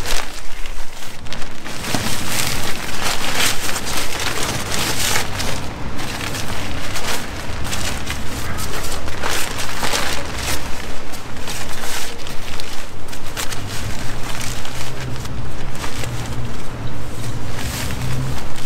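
Thin plastic disposable rain poncho crinkling and rustling loudly as it is shaken out, lifted over the head and pulled on, in irregular crackly bursts.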